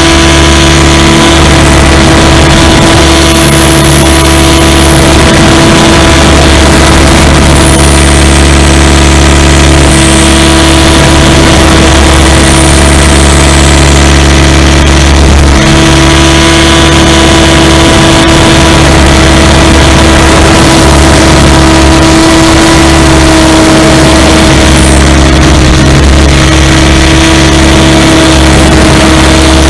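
Electric motor and main rotor of a SAB Goblin 500 RC helicopter in flight, heard from its onboard camera: a steady, loud whine held at a constant pitch, with rushing wind over the microphone.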